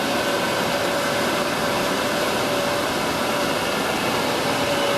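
Steady rushing roar of a waterfall, even and unbroken, with a faint steady hum under it.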